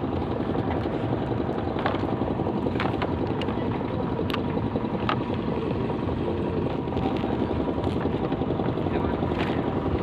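Steady engine drone with wind on the microphone, and a few light clicks scattered through it.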